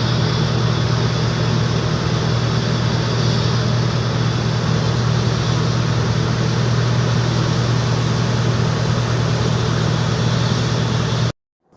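Heavy construction machine's diesel engine running steadily at a constant speed, a loud, even drone with a deep hum underneath; it stops abruptly near the end.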